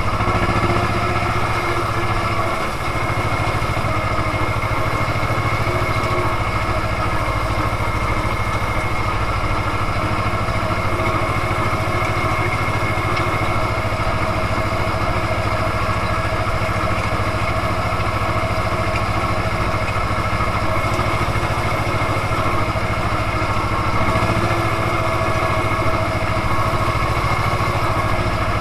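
Ursus C-330M tractor's two-cylinder diesel engine running steadily under load, heard from inside the cab while it pulls a straw turner across the field. A brief knock sounds right at the start.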